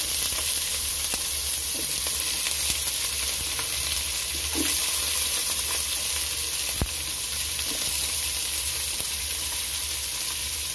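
Sliced onions frying in hot sesame oil and ghee with whole spices in an aluminium pot: a steady sizzle, with one faint click about seven seconds in.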